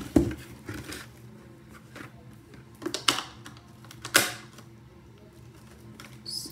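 A makeup case being opened and handled: a knock just after the start, then sharp clicks about three and four seconds in, with smaller ticks between.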